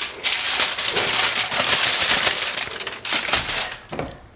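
Spice shaker being shaken hard, the dry seasoning granules rattling inside and pattering out, in several spells with short pauses around three seconds in and near the end.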